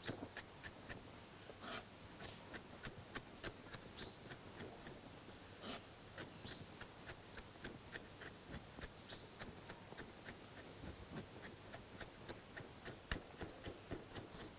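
Knife chopping lime peel finely on a wooden cutting board: faint, quick, even taps of the blade, about three or four a second.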